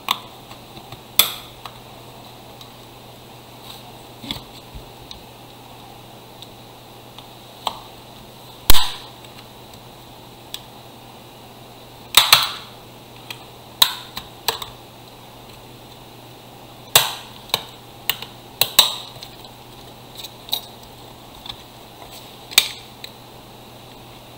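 Irregular sharp plastic clicks and snaps as a power bank's tightly latched plastic casing is pried apart by hand with a flat tool. The loudest snap comes a little over a third of the way in, and several more follow in the second half, over a faint low hum.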